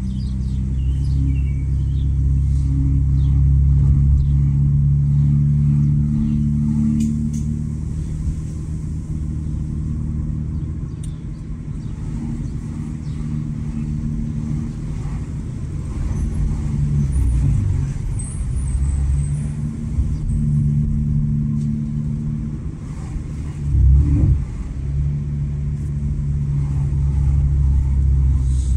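Exhaust of a Honda Accord 3.5-litre V6 with its muffler deleted, running while driving: a steady low engine note that eases and picks up again midway, with a short louder burst late on.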